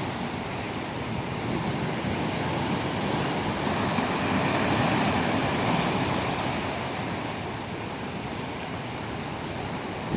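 Ocean surf washing in, a continuous rush of waves that swells about halfway through and eases off a little near the end.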